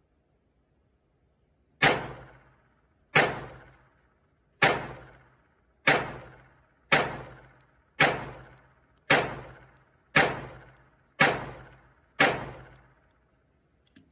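Ruger LCP II .22 LR pistol fired ten times at a steady pace, about one shot a second, each crack followed by a short echo tail. The evenly spaced shots show no pause for a stoppage.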